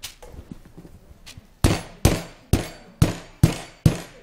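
Rubber mallet pounding once-fried plantain slices flat on a table to make tostones: six sharp strikes, about two a second, starting about a second and a half in.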